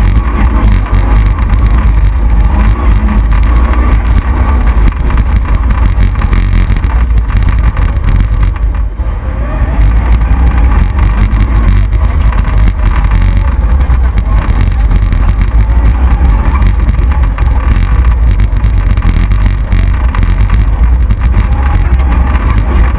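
V8-engined Mitsubishi Pajero off-road racer driving hard along a dirt bush track: the engine runs loud and steady, under a heavy low rumble from the bonnet-mounted camera's microphone. The level dips briefly about nine seconds in, as if the driver lifts off.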